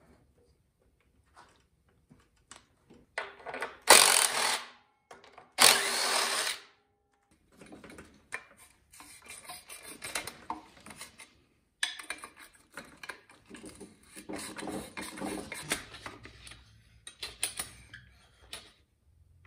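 Hand tools working the bolts and covers off a two-stroke cut-off saw: irregular metal clicks, scraping and rattling of tools and parts. Two short, loud power-tool bursts come about four and six seconds in.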